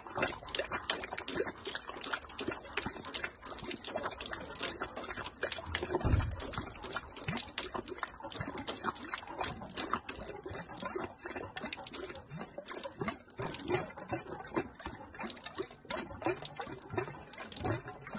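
Water gushing out of a hull outlet and splattering onto the ground, pumped overboard by a Whale Gulper 220 shower drain pump, with a low thump about six seconds in. The stream weakens as the pump empties it.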